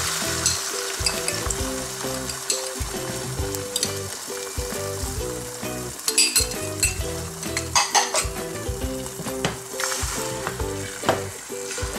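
Beaten eggs sizzling in hot oil in a nonstick frying pan as a thin omelette sets, with a few light clicks of a spoon against the pan over soft background music.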